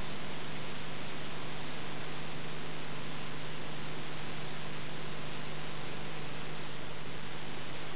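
Steady hiss with a low electrical hum underneath, unchanging throughout: the noise floor of a silent Super 8 film's transfer, with no sound from the action itself.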